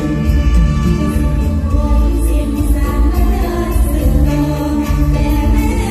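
Live Isan mor lam stage music played loud through a concert PA, with singing over a heavy, steady bass.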